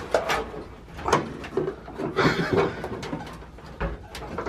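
Scattered clicks and knocks of car interior parts and wiring being handled, with a short rustle about two seconds in and a low thud near the end.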